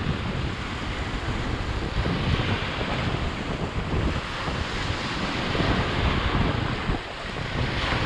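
Sea surf washing in steadily, with wind buffeting the microphone in a gusty low rumble.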